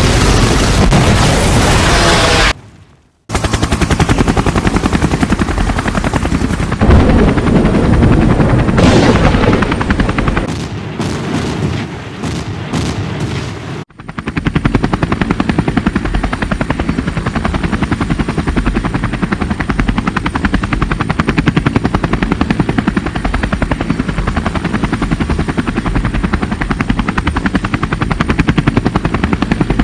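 Edited action sound effects: gunfire and booms in the first half, broken by a brief silent gap and a hard cut. From about halfway there is a long, steady, rapid helicopter-like rotor chop.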